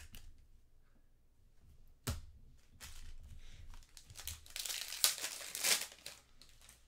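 A trading-card pack's wrapper crinkling as it is torn open, loudest about four to six seconds in, with a single sharp tap about two seconds in.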